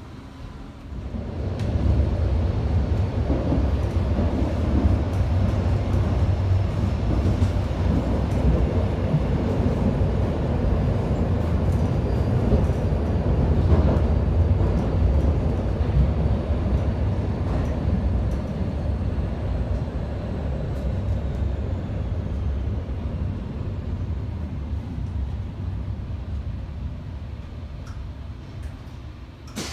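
Berlin U-Bahn subway train running through a tunnel, heard from inside the car: a steady low rumble of wheels on rails. It builds up about a second in and eases off toward the end as the train slows for the next station.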